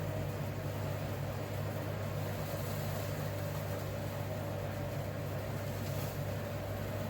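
Steady low mechanical hum of an indoor appliance, unchanging throughout.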